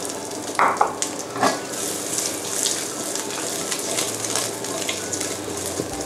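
Cut pork sausages sizzling in hot oil in a frying pan as they are rolled about. A couple of short knocks sound about half a second and a second and a half in.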